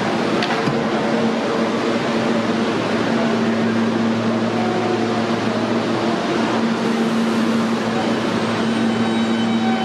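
R160A subway train standing at the platform, its air-conditioning and on-board equipment giving a steady hum with a low tone. Near the end, higher whining tones join in as the train gets ready to pull out.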